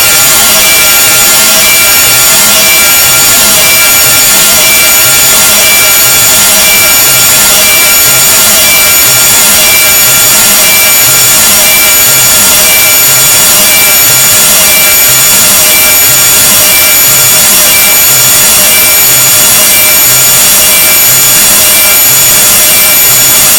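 Loud, harsh noise sound effect: an unbroken grating hiss across the whole range with several steady high tones on top and a faint low pulsing underneath.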